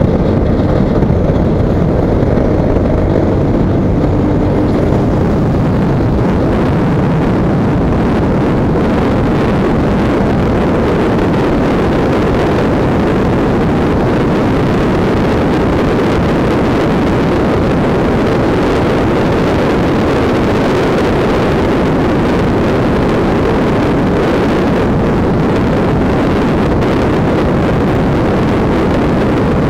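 Honda CBR sport motorcycle cruising at a steady road speed: its engine runs evenly under a constant rush of wind noise on the microphone.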